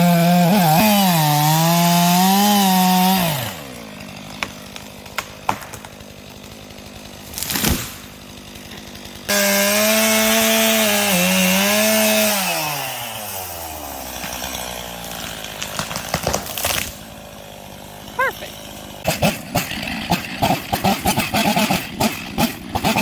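Chainsaw run at full throttle in two bursts of about three seconds each, one at the start and one about nine seconds in. The pitch dips as the chain bites into the pine, then falls away as the saw is throttled back to idle. Between and after the cuts the engine runs at a low idle, with a few knocks.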